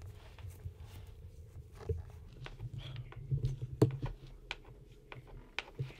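A person shifting on a chair with hands tied behind it: faint scattered clicks and rustling over a low steady hum.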